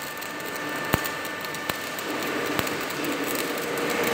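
MIG welding arc hissing and crackling steadily while tack-welding steel plates into an H-beam, with three short sharp clicks in the first few seconds.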